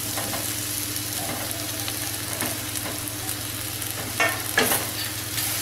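Button mushrooms sautéing in hot oil and masala in a wok, sizzling steadily as a wooden spatula stirs them through, with two sharper knocks near the end.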